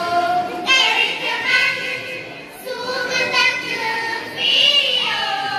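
Group of girls singing a Kashmiri manqabat (Shia devotional song) together in unison, in long held notes, with a brief dip about two and a half seconds in.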